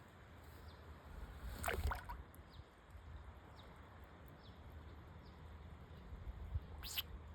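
Japanese pond turtle sneezing twice, each a short sharp puff, about two seconds in and again near the end, over a faint steady background hum.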